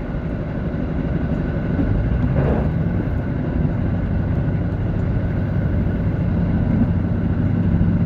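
JR Central KiHa 85 diesel railcar under way, heard from inside the car: steady drone of its Cummins diesel engines with wheel and rail noise, slowly growing louder. A brief rushing swell comes about two and a half seconds in.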